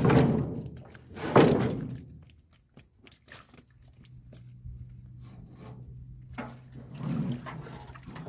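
A fish trap being handled in a boat: two loud rustling knocks a little over a second apart, then faint clicks and a smaller knock near the end, over a low steady hum.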